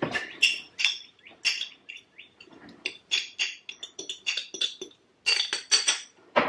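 Metal spoon clinking and scraping against the inside of a glass mason jar while stirring powdered taco seasoning, a quick run of sharp ringing clinks.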